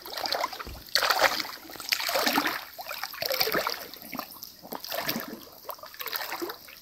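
Stream water splashing and sloshing in irregular bursts as a person wades and lowers a mesh fish trap into the shallow water.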